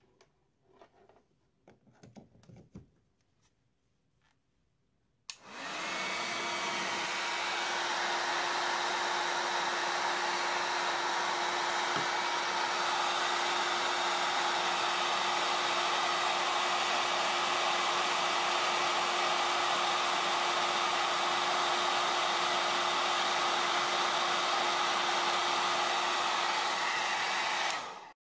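Conair handheld hair dryer switched on about five seconds in, blowing steadily with a constant motor hum under the rush of air, then switched off just before the end. A few faint taps and clicks of handling come before it starts.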